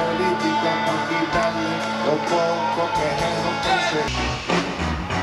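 Rock band playing live, electric guitar to the fore. About four seconds in, the music cuts abruptly to a different passage.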